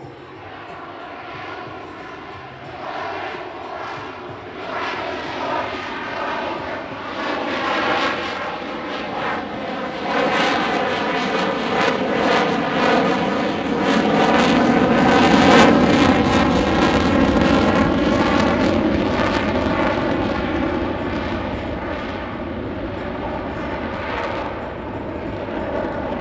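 F-22 Raptor's twin Pratt & Whitney F119 turbofans during a low pass. The jet noise builds to its loudest about fifteen seconds in, with a whining tone that drops in pitch as the jet goes by, then slowly fades.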